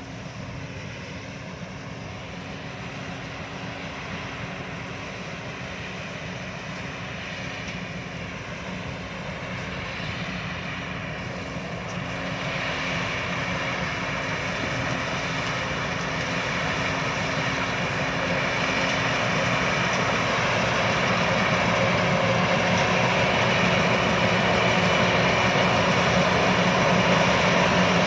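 Combine harvester engine running steadily, growing gradually louder.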